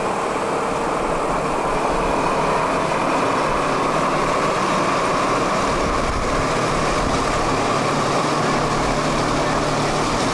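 Engine of a big self-propelled boat mover (a straddle-type boat lift) running steadily and loud as it drives slowly past on gravel.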